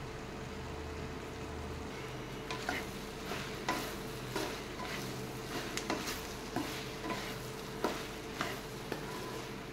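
Wooden spatula stirring chopped okra and onions in an aluminium kadai, knocking and scraping against the pan about once or twice a second from a couple of seconds in, over a faint steady sizzle of the vegetables frying on low flame.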